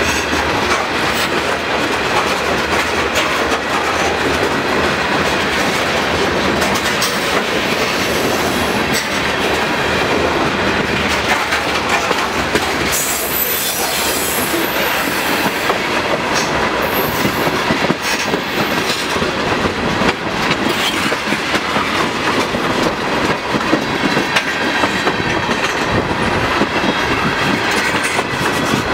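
Freight cars rolling past close by, first covered hoppers and then tank cars: steel wheels clicking over rail joints over a steady rumble. A brief high wheel squeal comes about halfway through.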